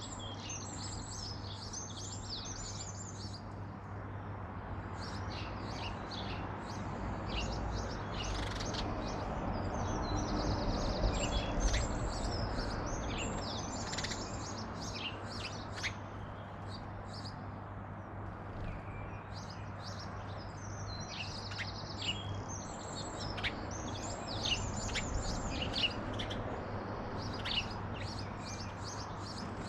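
Small garden birds chirping and twittering, with many short high calls and quick trills overlapping. A steady low hum runs underneath, and a broad rumble swells about a third of the way through.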